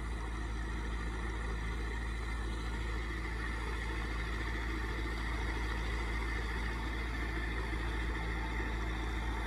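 Massey Ferguson 385 tractor's four-cylinder diesel engine running steadily under load as it pulls a rotavator.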